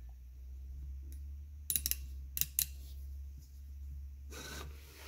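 A 1–2 inch micrometer's ratchet thimble clicking as it is snugged onto a turned test bar: a quick cluster of clicks, then two more, over a steady low hum. Near the end comes a short scraping rustle as the micrometer is slid off the bar.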